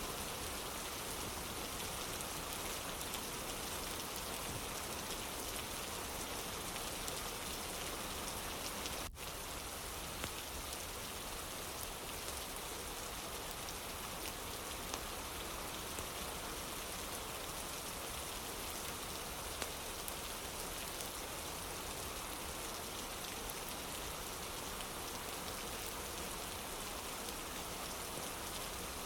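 Steady rain falling, with a momentary dropout about nine seconds in.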